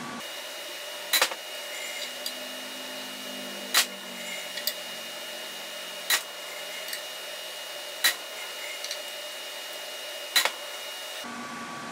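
Hammer tapping a steel transfer punch through the bolt holes into a flywheel to dimple the drill locations, five sharp metal-on-metal strikes about two seconds apart, the last a quick double tap. A faint steady high whine runs underneath.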